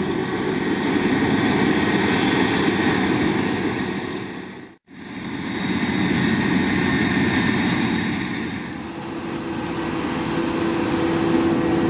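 Heavy farm machinery engines running steadily under load during maize silage harvesting. The sound dips out briefly about five seconds in and comes straight back.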